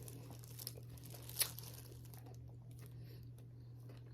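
Faint crinkling of food wrapping being handled while eating, with one sharp tick about a second and a half in, over a steady low hum.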